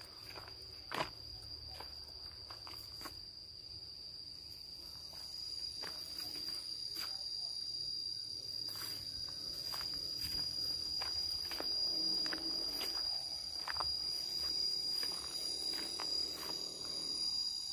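Insects droning as one steady high-pitched tone, with the soft irregular clicks of footsteps on a dirt path underneath.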